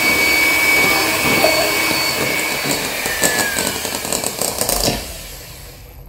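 Electric hand mixer running with a steady high whine, its beaters whipping butter, eggs and sugar into a thick batter in a ceramic bowl; it is switched off about five seconds in once the ingredients are combined.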